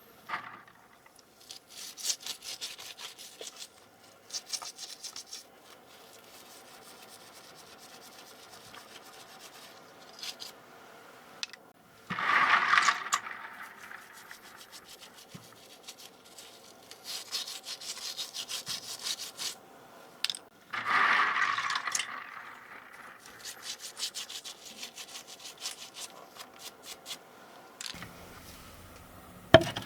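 Brush scrubbing a dirty keyboard in bouts of quick scratchy strokes, with two louder rushing swishes about twelve and twenty-one seconds in.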